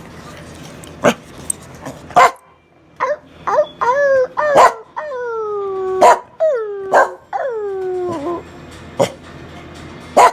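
A dog whining and yowling: from about three seconds in, a run of drawn-out cries that slide down in pitch, with short sharp barks before and after them.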